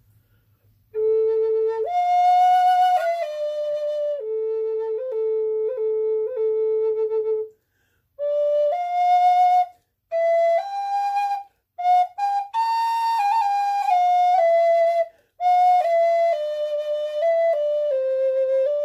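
Wooden Native American flute playing a slow melody of long held notes, stepping up and down, with brief breaks for breath and quick grace-note flicks on a low held note.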